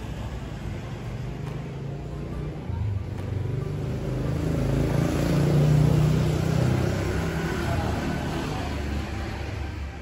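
A motor vehicle passing by, its engine rumble swelling to a peak about six seconds in and then fading.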